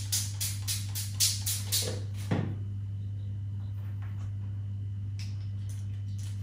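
Background music with a shaker-like beat of about four strikes a second that ends about two seconds in with a falling swoosh, after which only a steady low hum remains.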